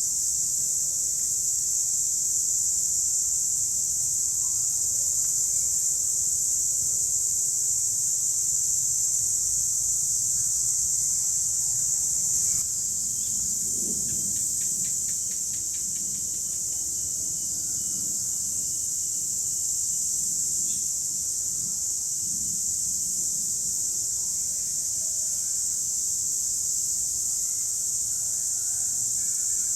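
Cicadas calling in chorus: a steady, high-pitched drone that eases slightly about halfway through. A short run of quick faint clicks follows just after.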